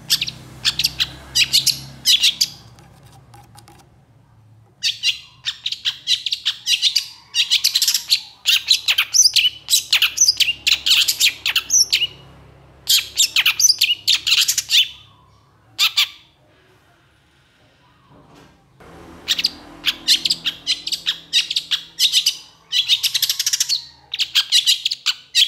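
Long-tailed shrike (pentet) singing in long runs of rapid, sharp high notes, several phrases a few seconds long broken by short pauses, with a longer pause about two-thirds of the way in.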